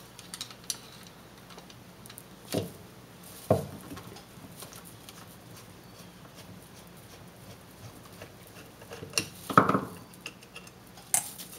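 A screwdriver backing screws out of the float bowl of a Mikuni two-stroke carburetor, heard as a few scattered small metallic clicks and taps over a faint steady hum, the loudest two close together near the end.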